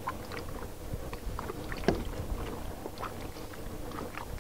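Gloved hands mixing raw chicken wings in lemon juice and diced garlic in a stainless steel bowl. Irregular wet squelches and sloshing with small clicks against the bowl, one sharper knock a little before the middle, over a low steady rumble.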